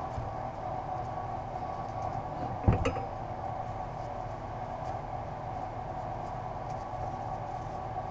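Faint rustling and scraping of exhaust heat-wrap being wound around a steel motorcycle header pipe, over a steady background hum. A single knock sounds about two and a half seconds in.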